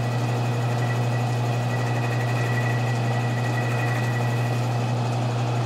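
Metal lathe running steadily while its cutting tool takes a light chamfer pass at a rifle barrel's muzzle crown, a constant low hum with a thin high tone that fades out near the end.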